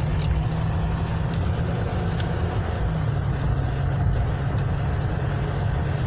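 Steady in-cabin road noise of a car driving on a wet road: a low engine and tyre hum under an even tyre hiss. The hum steps down a little about halfway through, and there are a couple of faint ticks.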